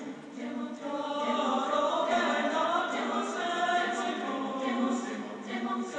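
Soundtrack music of several singing voices together, choir-like.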